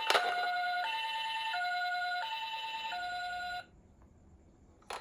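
Toy ambulance's electronic two-tone siren alternating a higher and a lower note about every 0.7 seconds, then cutting off suddenly about three and a half seconds in.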